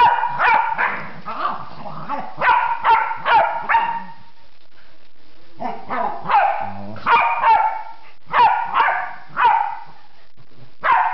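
Dogs at play, one barking in quick runs of three or four sharp barks with short pauses between the runs.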